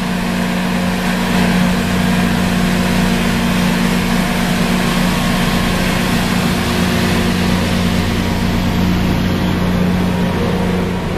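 Rail-grinding train passing with its grinding stones working the rails: a steady deep hum under a continuous harsh grinding hiss.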